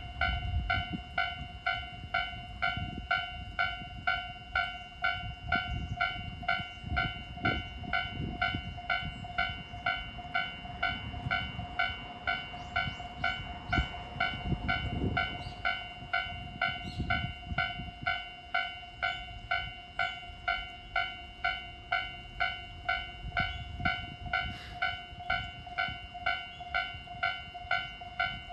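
Japanese railway level-crossing warning bell ringing in a steady beat, a little under two strokes a second, with a cracked, distorted, off-pitch tone from its speaker. A diesel train rumbles past with wheel knocks over roughly the first two-thirds, then the bell rings on alone.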